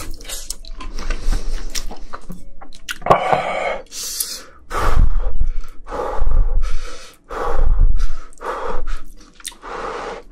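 Close-miked slurping and chewing of instant ramyeon noodles in broth: a run of short, loud, wet slurps, about one a second through the second half.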